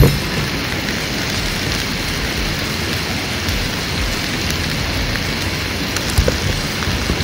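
Beef sizzling steadily in a metal pan over a camp stove turned up a little, with a sharp knock at the pan right at the start and a few small crackles near the end.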